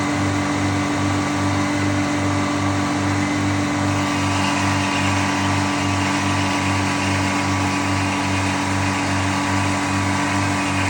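Sawmill running steadily under power, with a low, even throb about three times a second. About four seconds in, a higher hiss grows louder over the running.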